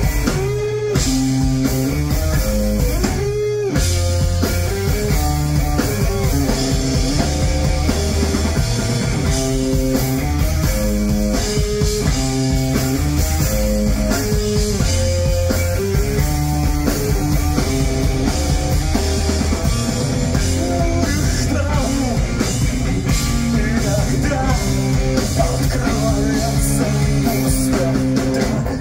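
Live pop-punk band playing an instrumental stretch between vocal lines: distorted electric guitars over bass and a drum kit, loud and continuous, recorded from the audience on a club floor.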